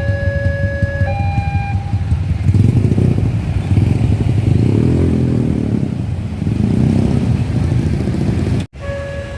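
Railway level-crossing warning alarm sounding two alternating electronic tones, each held about a second. It gives way to a loud engine rumble of heavy traffic passing close by, rising and falling in pitch. The alarm resumes after a brief cut near the end.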